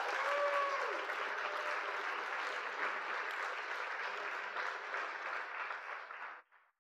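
Audience applause with a brief cheer near the start, fading slowly and cutting off near the end.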